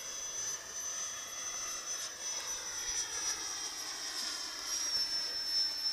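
Electric ducted fan of a radio-controlled L-39 model jet whining in flight: a steady high tone with lower tones beneath it that slowly fall in pitch.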